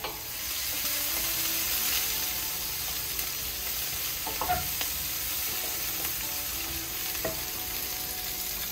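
Sliced onions sizzling as they fry in oil in a stainless steel pot, getting louder about half a second in. A wooden spoon stirs them, knocking against the pot a couple of times.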